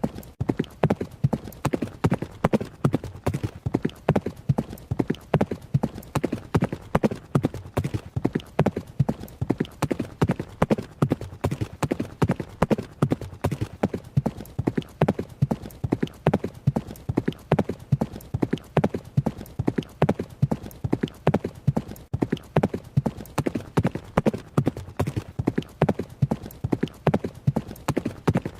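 Horse running: fast, steady hoofbeats, several strikes a second, keeping an even rhythm throughout.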